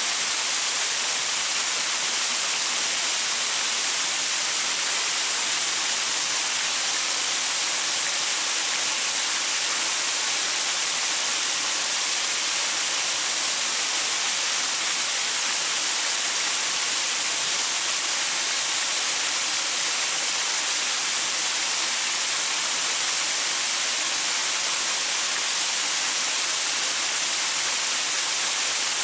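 Waterfall splashing over rocks: a steady, even rush of falling water with a bright, hissing top.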